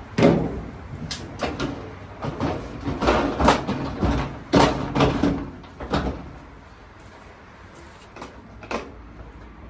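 Clunks and knocks from handling a reassembled GE dryer's cabinet: several sharp knocks over the first six seconds, then a quieter stretch with one more click near the end.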